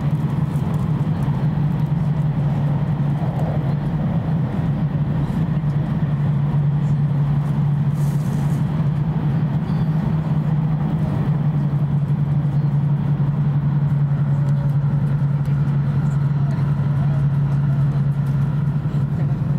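Running noise of a Tohoku Shinkansen Hayabusa train heard inside the passenger cabin: a steady low hum with rushing noise over it, unbroken throughout.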